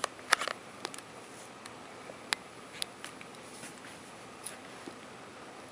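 Sharp plastic clicks and taps as the back battery cover of a Sony Ericsson Xperia X10 phone is pressed back on and the phone is handled: a quick cluster of clicks near the start, then a few single clicks spread out.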